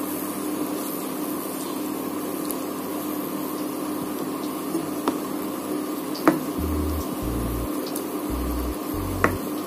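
A ladle stirring a thin mixture of cooked moong dal and potato in a nonstick kadai, knocking sharply against the pan three times, over a steady hiss.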